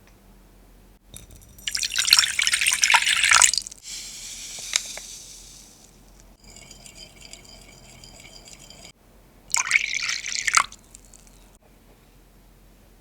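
Liquid poured into a bowl twice: a pour of about two seconds starting near the two-second mark, then a shorter one of about a second near the end.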